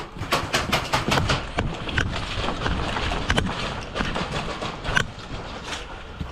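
A quick run of sharp clicks and snaps, about seven a second, for the first second and a half, then single clicks every second or so over a steady background.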